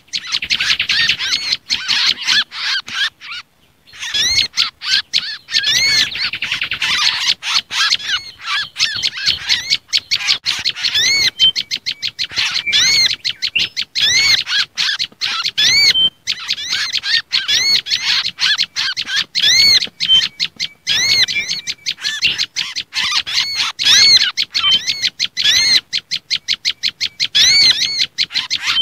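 Bird-lure recording of small songbirds calling: agitated prenjak lumut (tailorbird) chatter mixed with kancilan bakau (mangrove whistler) and sogon calls. It is a dense run of rapid, high, repeated chirps and short rising-and-falling whistled notes, with a brief break about three and a half seconds in.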